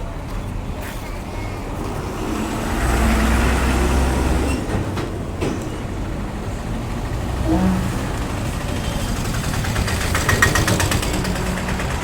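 Bus stop ambience: a bus engine running, its low rumble swelling about three to four seconds in, with a fast rattling near the end and street noise around it.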